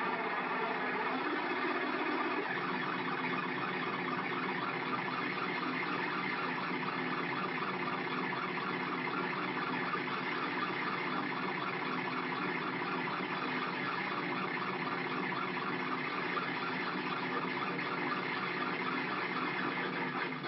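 Handmade Arduino synthesizer running the Mozzi sound library, droning steadily, with many layered tones and a fast flutter in its upper range. Its lower tones fade about two seconds in as the knobs are turned.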